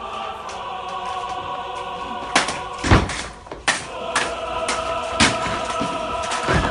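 Background music with a choir, cut through by about five sharp hits spread over the last few seconds.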